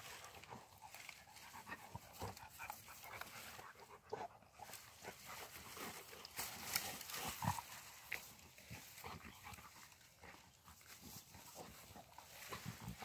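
Two Rottweilers chewing and tugging at a dead branch in long grass: scattered twig crackles and grass rustling, with a few louder knocks about seven seconds in.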